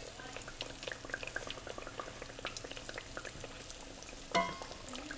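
Battered green tomato slices frying in hot oil in a skillet: a steady, quiet crackle and sizzle. One brief louder sound comes near the end.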